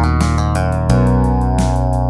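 Instrumental hip-hop beat built in GarageBand: held chords over a heavy steady bass, with regular drum hits, the chord changing about halfway through.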